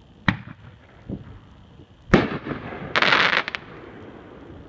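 A 500-gram 'Big Mac' firework cake going off: a sharp bang, a smaller pop about a second in, then the loudest bang a little after two seconds. About half a second of dense crackling follows.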